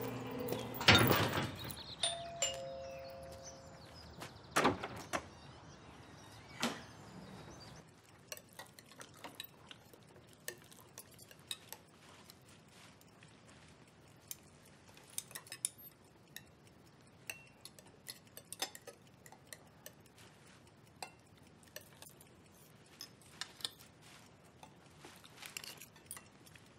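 Knife and fork clinking and scraping on dinner plates in small, scattered clicks. Earlier there is a thud about a second in, then a two-note falling doorbell chime.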